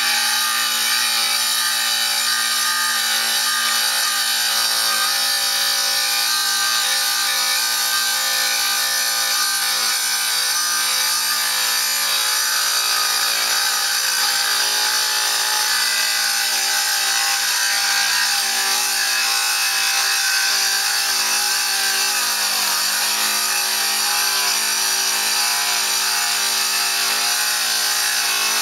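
Electric wet tile saw running steadily as its blade grinds through a floor tile fed along the sliding table. It makes a constant gritty hiss over the motor's hum. The motor's pitch sags briefly about three-quarters of the way through.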